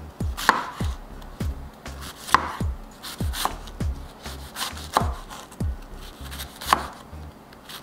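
Chef's knife thinly slicing raw purple cabbage on a wooden cutting board: a run of knife taps against the board, about two a second and unevenly spaced.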